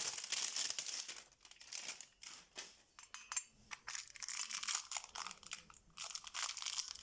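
Packaging of new chainsaw parts crinkling and rustling as it is handled, in irregular crackles with a quieter moment early on.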